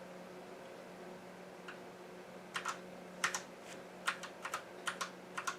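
Computer keyboard keys pressed in short runs, about a dozen clicks in the second half, some in quick pairs, over a steady low hum: someone trying keys to get into the BIOS setup.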